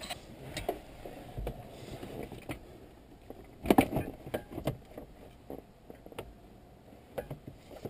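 Plastic lower dash trim panel being handled and fitted into place: scattered light clicks and knocks of plastic, with a louder cluster of knocks about four seconds in.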